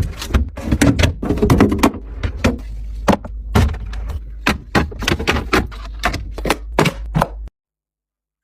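A quick run of hard knocks and clacks, two or three a second, as hard items such as fridge shelves, drawers or containers are handled and set down, over a steady low hum. The sound cuts off abruptly about seven and a half seconds in.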